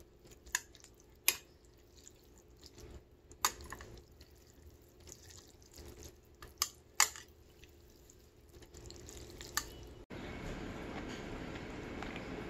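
Metal chopsticks stirring instant noodles in broth in a ceramic bowl, with wet sloshing and about six sharp clinks of chopsticks against the bowl. About ten seconds in, a steady background hiss takes over.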